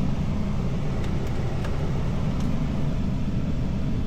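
2014 Ram 1500 pickup engine idling steadily with the air conditioning switched on.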